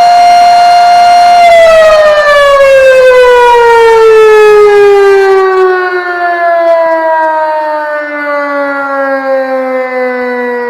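Federal Model 5 electromechanical warning siren, built in the 1930s or 1940s, holding a steady full-speed wail, then about a second and a half in beginning to wind down, its pitch falling steadily and the sound fading as the rotor slows after the power is cut.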